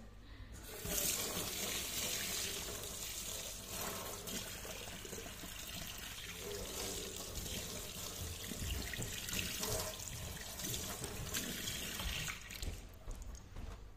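Kitchen mixer tap turned on about a second in, water running steadily into a stainless steel sink and splashing over hands rinsing a phone, then shut off near the end.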